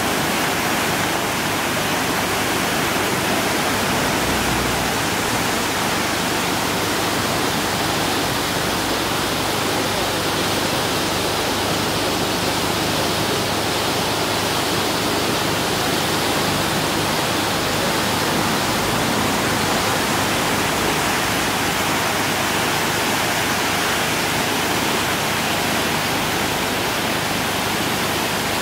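Small river swollen in flood, its muddy water rushing and churning over rapids: a steady, loud rush with no let-up.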